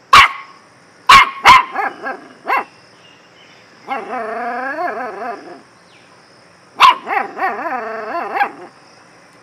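Puppy barking: five sharp barks in the first few seconds, a drawn-out wavering whine around the middle, then another sharp bark followed by a quick run of yips.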